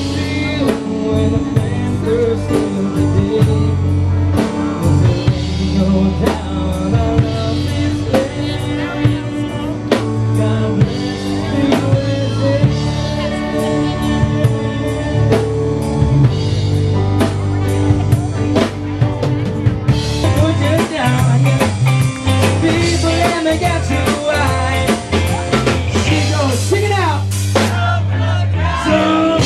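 A live band playing rock music, with a steady drum-kit beat and a singer.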